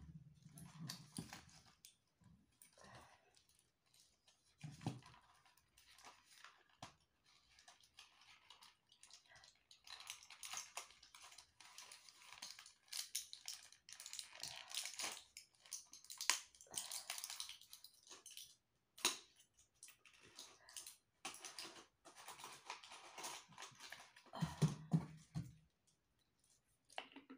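Crinkly plastic packet rustling and crackling as it is handled, in long bouts through the middle. Near the end, a few low gulps as she drinks.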